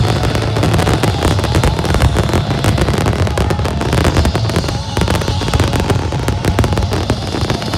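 Fireworks display: dense, rapid crackling and banging, over a steady low rumble.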